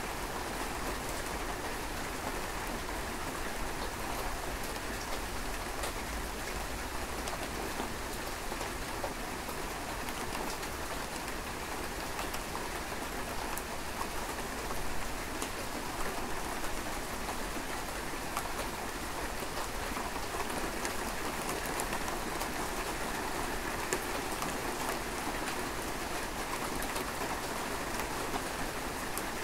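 Steady rain: an even hiss with many separate drops ticking through it.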